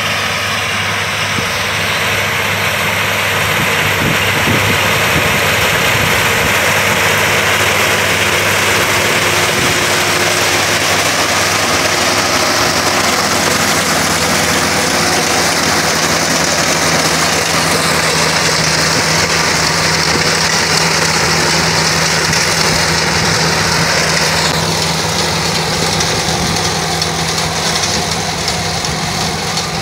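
A half-feed paddy combine harvester with a rear binder running while harvesting: a steady engine drone under a broad mechanical din. The higher part of the sound drops away about 24 seconds in.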